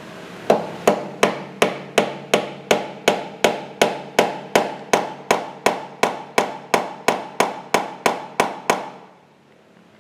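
Hammer tapping on metal in a steady rhythm, about three blows a second, each with a short metallic ring, tightening the steering lock's barrel casing in a Vespa VBB headset. The blows stop near the end.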